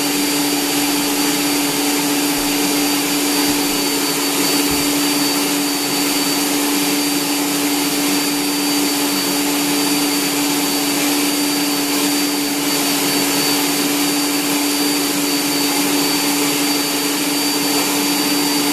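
Electric stand mixer running steadily, its motor turning the mixing tool through a bowl of biscuit dough. The motor gives a constant hum with a thin high whine above it.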